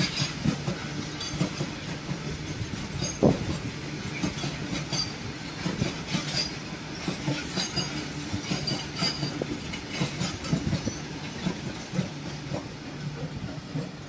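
Covered goods wagons of a freight train rolling past, their steel wheels knocking irregularly over rail joints above a steady rumble. The sound eases a little near the end as the last wagons and brake van go by.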